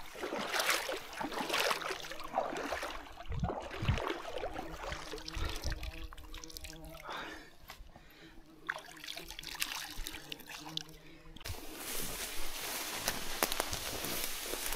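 Shallow water splashing and trickling, scooped up by hand and running back off, as when washing the face in a stream.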